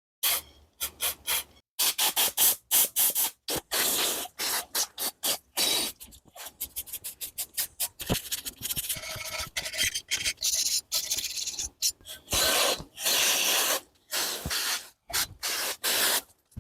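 Repeated hand rubbing and scraping strokes on a hard part, like filing or abrasive cleaning, coming in quick irregular runs.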